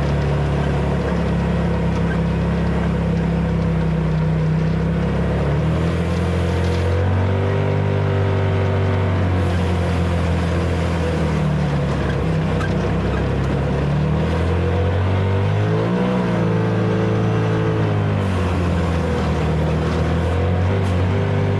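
Vehicle engine running continuously, its pitch stepping and gliding up and down as the revs change.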